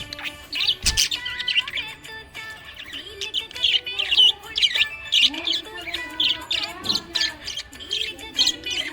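Budgerigar chirping and warbling, a quick, irregular run of short high chirps.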